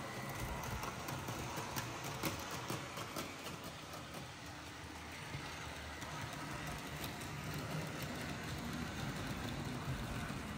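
Roco model ÖBB 1670 electric locomotive and its beer wagons running along model railway track: a steady motor hum and rolling noise, with light clicks as the wheels pass rail joints and points, thickest about two to three seconds in.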